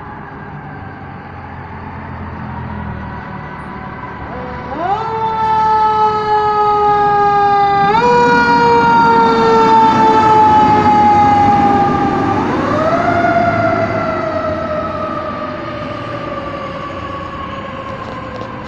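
Fire truck siren wailing as the apparatus pulls out and passes: it rises quickly about five seconds in, jumps up again around eight and thirteen seconds, and falls slowly after each rise. Loudest in the middle; a fainter siren is already sounding at the start, with engine rumble underneath.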